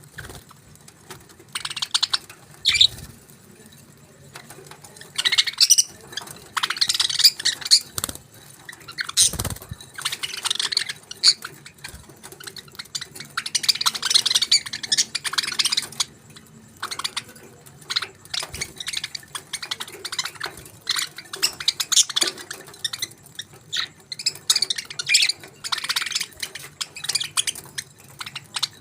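Budgerigars chirping and warbling in quick, irregular bursts of high twittering, with a few louder squawky calls and occasional clicks.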